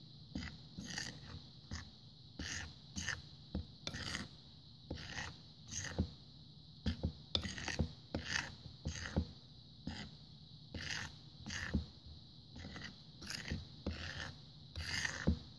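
Metal utensil stirring dry flour mixture in a ceramic bowl: quick repeated scraping and rubbing strokes, about two a second, as the dry ingredients are mixed.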